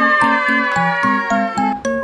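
Background music: a light tune with a bass line of short repeated notes, about four a second, under higher ringing notes.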